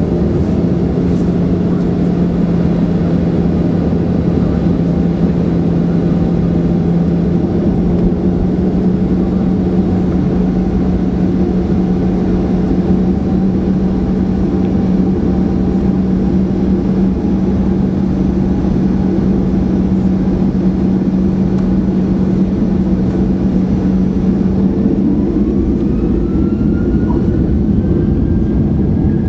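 Boeing 737-900ER cabin noise while taxiing: the CFM56-7B jet engines running at low thrust, a steady hum heard through the cabin wall by the wing. Near the end, higher whines rise in pitch.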